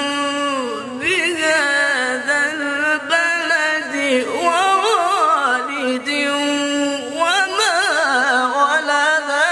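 A man chanting a Quran recitation in the melodic tajweed style. One voice holds long steady notes and winds through ornamented runs and a long falling glide, breaking briefly for breath about a second in and again near seven seconds.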